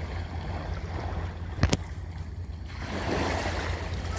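Ocean waves washing in, with wind rumbling on the microphone. A single sharp click sounds about one and a half seconds in.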